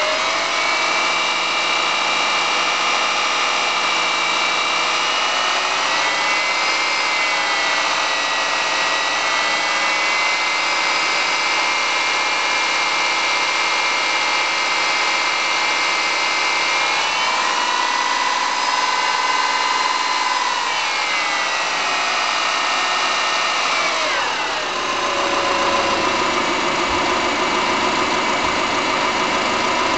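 A 2005 Subaru Forester's naturally aspirated EJ25 2.5-litre flat-four running steadily, its engine speed shifting up or down a few times and holding between. Its noise is what the owner takes for piston slap.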